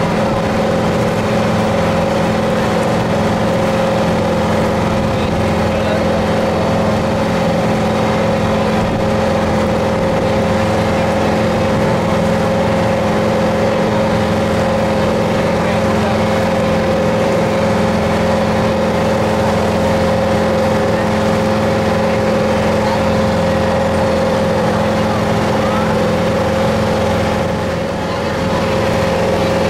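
Motorboat engine running steadily at cruising speed, a constant drone over the rush of water and wind.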